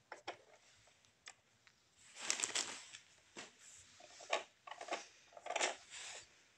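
Plastic toy pieces being handled: scattered light clicks and rustles, with louder rustling about two, four and five and a half seconds in.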